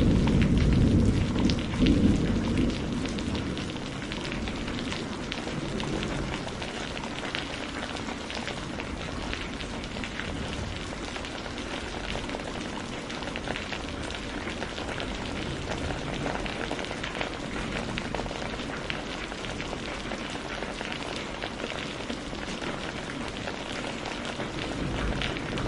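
Thunderstorm rain falling steadily, with dense pattering drops. The tail of a thunder rumble dies away over the first few seconds.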